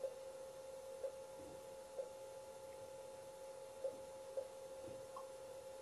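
RxP ultrasound biometer sounding a faint steady tone with short pips about a second apart as it acquires axial-length readings through the water-filled immersion shell.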